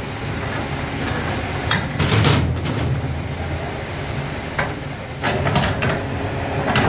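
Metal shoe-sole moulds clanking and sliding on a steel worktable: a cluster of knocks about two seconds in and more in the last two seconds, over a steady machine hum.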